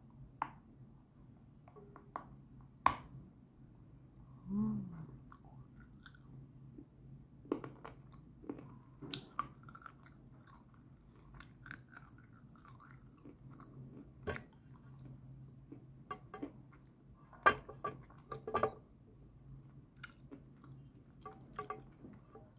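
A mouthful of edible clay being chewed: soft, moist crunching and clicking, with a few sharper crunches scattered through it.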